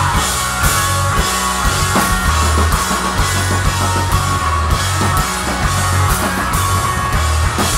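Punk rock band playing an instrumental passage: electric guitars, bass and a drum kit at full volume, with no singing.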